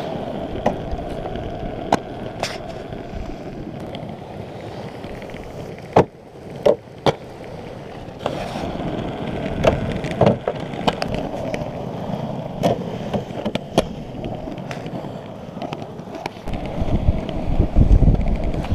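Aggressive inline skate wheels rolling on asphalt, a steady rolling noise. Several sharp clacks and knocks from the skates hitting and sliding on the box obstacle, clustered in the middle. A louder low rumble near the end.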